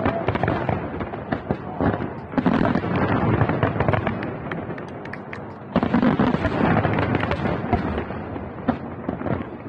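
Aerial firework shells bursting in quick succession, a dense crackling of many small pops from the crackling stars, with fresh loud volleys of bangs about two and a half and about six seconds in.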